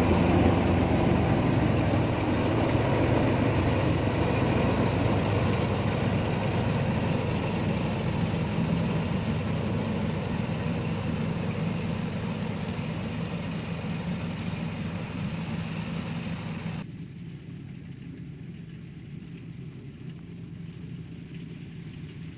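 Iseki combine harvester's diesel engine and threshing machinery running steadily while it harvests rice, growing slowly fainter as it moves away. About 17 s in the sound drops suddenly to a quieter, duller drone of the machine farther off.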